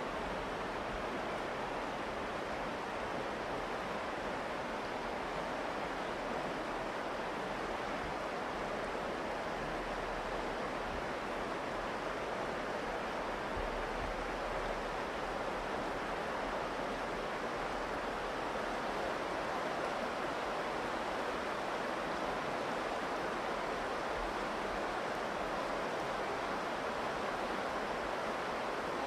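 Virgin River flowing, a steady rush of water.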